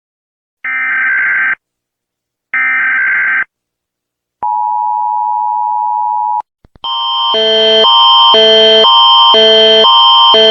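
An Emergency Alert System tone sequence. First come two short bursts of screechy digital header data tones, then a steady two-tone attention signal for about two seconds. Near the seven-second mark a loud alarm of several tones sets in, switching back and forth between a higher and a lower chord about two times a second.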